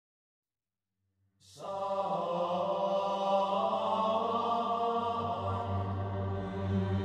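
Silence, then about one and a half seconds in, background music of held chanted voices over a low drone starts and carries on steadily.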